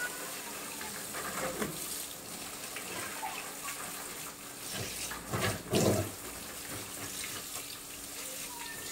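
Running water splashing steadily as the inside of a bird cage is washed down, with a louder burst of sound about five and a half seconds in.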